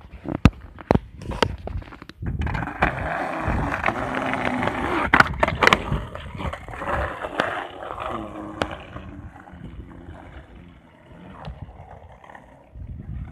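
Skateboard wheels rolling over ribbed concrete, a steady rumble for several seconds starting about two seconds in and fading after about nine seconds. Sharp clacks of the board break in along the way, with a few single knocks at the start and near the end.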